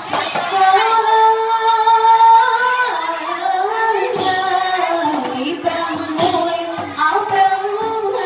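Singing that accompanies the Khmer trot (robam trot) dance: a high voice holds long, wavering melodic notes, with a few scattered knocks.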